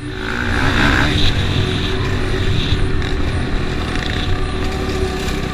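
Dirt bike engine running steadily while riding an off-road trail, picked up by a helmet-mounted camera, with a heavy low wind rumble on the microphone.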